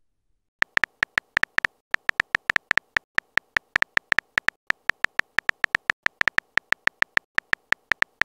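Phone on-screen keyboard typing clicks: a rapid, even run of short, bright ticks, about six or seven a second, starting about half a second in, as a text message is typed letter by letter.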